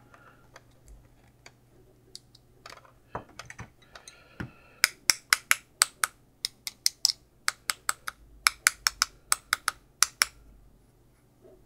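Sharp taps on a Commodore calculator's circuit board and LED display module: a few scattered taps, then a quick run of about four to five a second for several seconds. The board is being jarred to see whether the LED segment that had been dead cuts out again.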